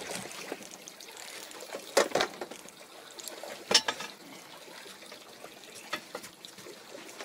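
Water trickling and splashing, with two sharp knocks, about two and three and a half seconds in.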